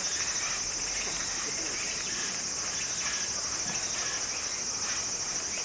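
Steady high-pitched chorus of insects, a dense continuous buzz with faint short chirps scattered through it.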